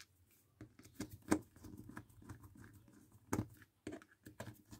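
A small screwdriver turning a screw into the plastic frame of a welding helmet's auto-darkening unit, with light scratching and handling noise and several sharp clicks and knocks as parts and tools are handled on the workbench.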